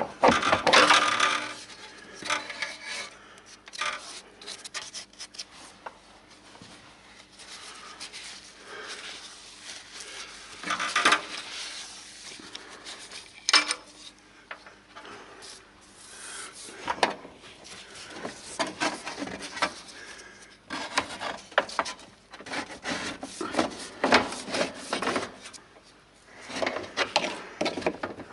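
Irregular scraping, rubbing and clanking of metal car parts and tools being handled while working under a car.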